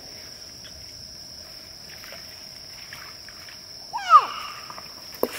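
Insects trilling steadily on one high note. About four seconds in, a short loud call swoops up and falls away, and a sharp click comes near the end.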